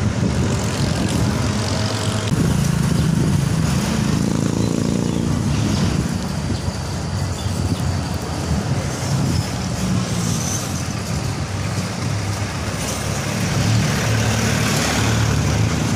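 Steady low rumble of vehicle engines and road noise in street traffic, with a jeepney's diesel engine passing close near the end.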